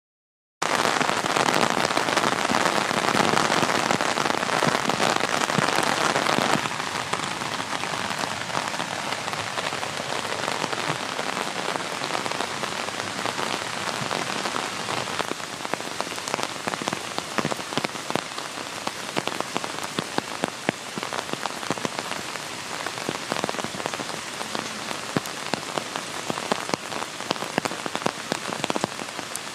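Rain falling, a steady hiss dotted with many separate drop hits. It starts abruptly, is louder for the first six seconds or so, then settles a little softer.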